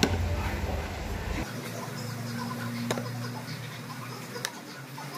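Faint, sparse clicks of cutlery against a plate during a meal, three light clinks a second or so apart, over a low rumble of background noise that stops about a second and a half in.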